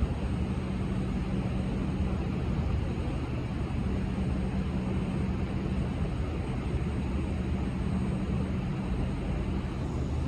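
Diesel locomotive engine running steadily, a low droning hum with a constant pitch and no horn.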